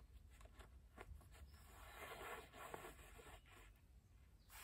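Faint rustling and scraping of a tarp and its cord being handled, with a few small clicks at first.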